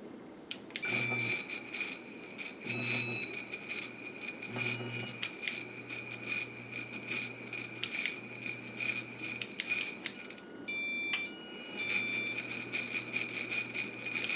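Casablanca ceiling fan's Inteli-Touch control board beeping as it is operated. There are three short beeps spaced about two seconds apart, then a quick run of stepped tones, over a steady high whine with scattered clicks.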